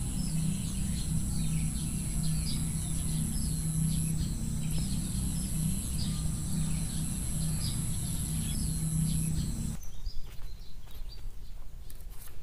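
Small birds chirping over and over, with a steady high-pitched tone and a low hum behind them. About ten seconds in this stops abruptly, and scattered soft taps of footsteps on a dirt path follow.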